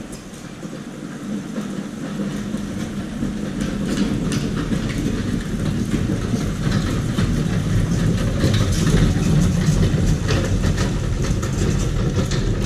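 Electric scooter towing a jet ski on a wheeled dolly over rough concrete: a rolling rumble with rattling and clacking that grows louder as it approaches and passes.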